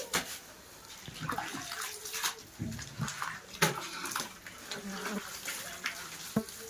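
Wet mud and cow dung being mixed by hand with water, with irregular sloshing and splashing.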